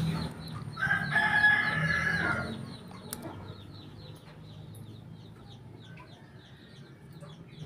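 A rooster crowing once in the background, a held call lasting about a second and a half that starts just under a second in. Faint, quick, high chirps repeat after it.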